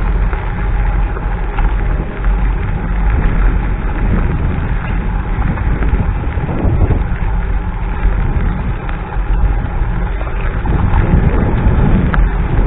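Steady wind and road rumble from riding a Zero 10X electric scooter, heaviest in the low end.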